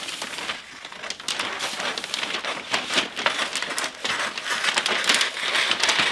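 Wrapping paper rustling and crinkling as it is handled and cut with scissors: a dense, irregular crackle of paper that gets louder about a second in.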